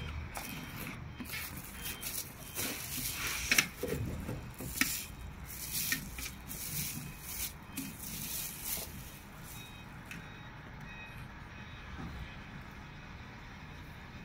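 Hand unpacking: a cardboard product box opened and a clear plastic bag rustling and crinkling around a plastic grain dispenser. The handling noise is busy for the first nine seconds or so, then grows quieter.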